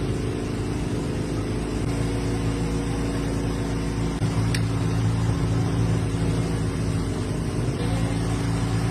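A motor or engine running steadily at an even pitch, with a single light click about four and a half seconds in.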